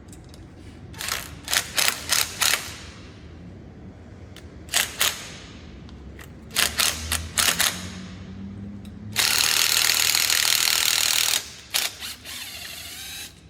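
A long pan head screw being driven into the end of an aluminium tube, cutting its own thread: short bursts of sharp mechanical clicking about one, five and seven seconds in, then about two seconds of loud continuous mechanical noise from around nine seconds, and a few more clicks after it.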